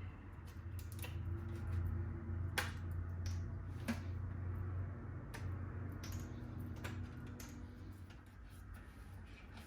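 Scattered light clicks and taps, irregularly spaced with two sharper ones about two and a half and four seconds in, over a steady low hum.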